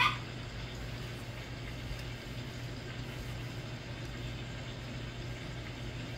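Steady low hum with a faint even hiss: room tone. A brief short sound comes at the very start.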